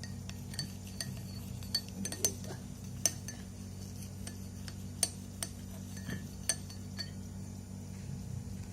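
A metal spoon clinking against a glass, about a dozen light, irregular clinks that ring briefly, as when stirring a drink.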